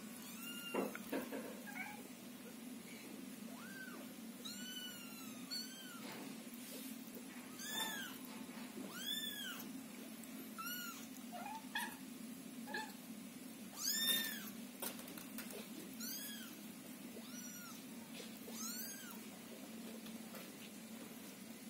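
Young Scottish fold and Scottish straight kittens mewing: a dozen or so short, high cries that rise and fall in pitch, about one every second or two, over a steady low hum.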